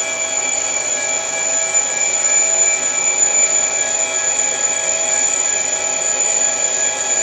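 HO-scale model of a Milwaukee Road SDL39 diesel locomotive running on the layout: a steady engine drone with several held high tones and no change in pitch.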